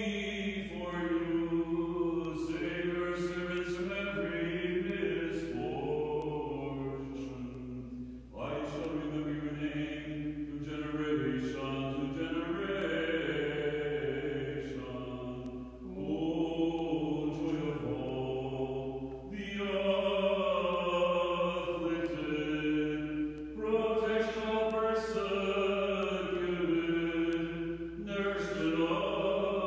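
Orthodox liturgical chant: voices singing long phrases on held notes, separated by brief pauses every few seconds.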